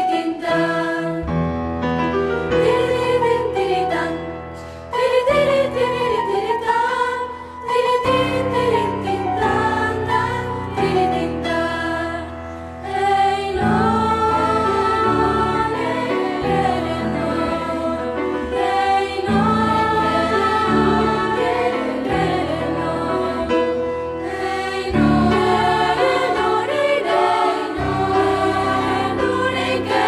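Mixed youth choir singing a song in several parts, with piano accompaniment holding low notes underneath.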